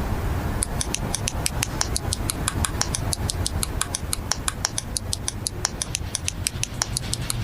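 Fast, even rattling ticks, about seven a second, starting about half a second in, over a low steady hum.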